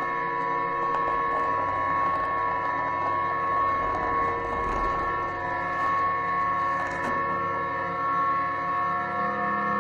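A steady electronic drone of several held tones, unbroken and without a beat, like an ambient space-themed soundtrack.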